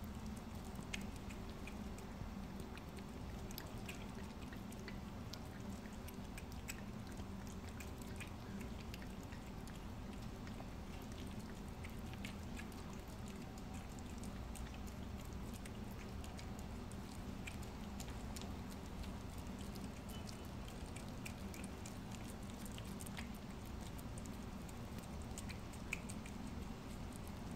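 A cat eating soft wet food: faint, irregular wet smacking and chewing clicks over a steady low background hum.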